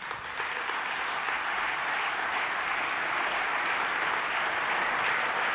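Audience applauding, swelling quickly at the start and then holding steady.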